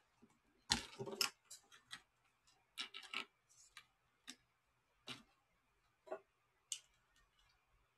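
Faint, irregular clicks and taps. They start with a quick cluster about a second in and are followed by single clicks roughly once a second.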